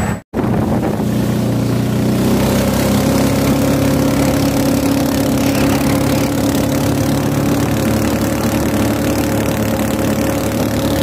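Small boat's outboard motor running steadily at speed, after a brief break at the start; its pitch rises a little about two seconds in, then holds.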